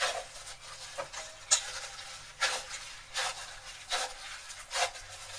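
A hand in a thin plastic glove kneads stiff cocoa-biscuit dough in a stainless-steel bowl. Each squeeze and fold of the dough, with the glove rustling and touching the bowl, makes a short stroke of sound, repeated at uneven intervals about once a second.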